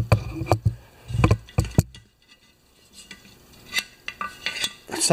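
Clicks and light metallic knocks from a metal chainsaw gas tank being handled and turned over with a light held against it. The sharpest knocks come in the first two seconds, with fainter clicks and rattles after.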